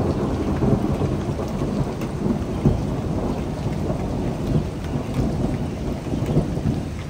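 Thunder rumbling continuously in a long, rolling roll, with rain falling.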